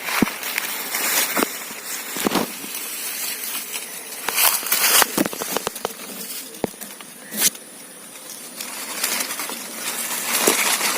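Irregular handling noise from the plastic bottle fish trap being set into the stream: scattered crackles, knocks and rustling. A louder rushing burst comes about four to five seconds in, and a shorter one follows a couple of seconds later.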